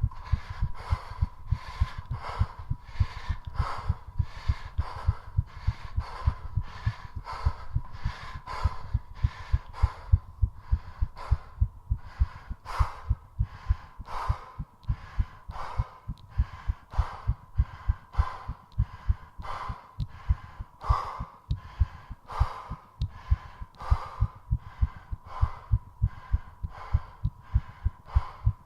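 A human heart beating fast, with rapid low thumps, picked up close at the chest and racing from the exertion of squats. Quick, heavy panting breaths, nearly two a second, sound over it, along with a faint steady whine.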